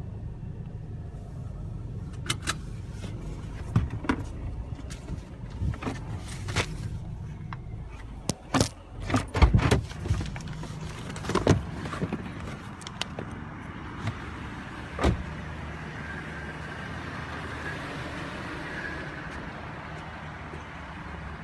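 Car engine idling with a steady low hum, heard from inside the cabin. Scattered sharp clicks and knocks sound over it, the loudest bunched together about 9 to 12 seconds in, with a last single knock around 15 seconds.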